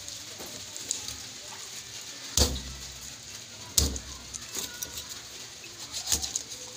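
Small knife cutting a whole minstrel sweetlips into steaks on a wooden cutting board: light scraping and clicking of the blade through the fish, with two sharp knocks of the knife on the board about two and a half and four seconds in.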